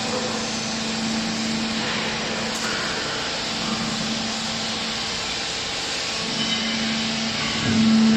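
Small hydraulic clothes baler running, its electric motor and hydraulic pump making a steady hum that grows louder about seven and a half seconds in.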